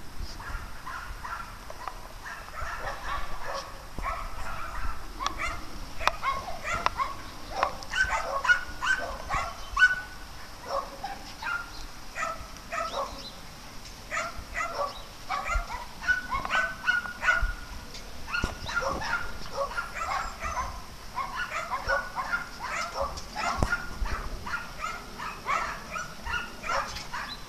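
Dogs barking over and over in quick runs of short, sharp barks.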